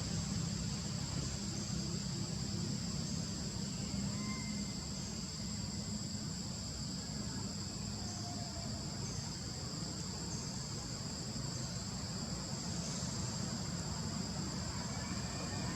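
Steady high-pitched insect drone, with a low rumble underneath and a few faint short chirps.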